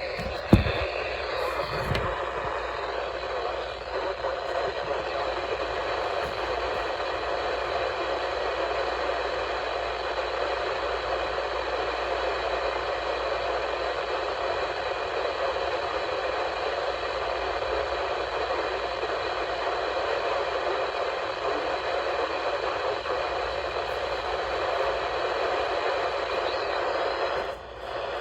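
Steady hiss of radio static from a receiver, thin and without deep bass, with a sharp click about half a second in. It dips briefly near the end.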